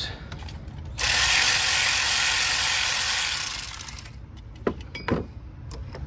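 Ratchet wrench clicking rapidly and continuously for about two and a half seconds as a fuel rail bolt is spun loose. It stops, and two short knocks follow near the end.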